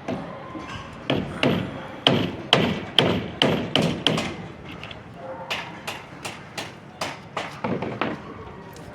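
A run of sharp, repeated blows from a hand tool striking hard material, about two a second, loudest over the first few seconds, then a softer run of knocks.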